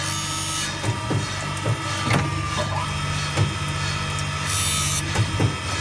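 Saw-blade sharpening machine grinding the tungsten carbide teeth of a circular saw blade with an alternate bevel. A steady motor hum with repeated short knocks as it works from tooth to tooth, and a hiss near the start and again after about four and a half seconds.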